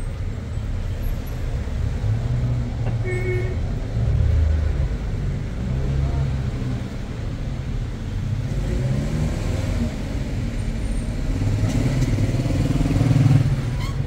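Street traffic: car engines running as cars drive past, a steady low rumble.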